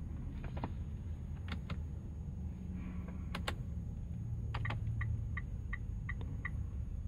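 Inside a Mitsubishi Outlander PHEV: several sharp clicks from the steering-wheel controls, then the dashboard warning chime beeping six times, about three a second, over a steady low hum.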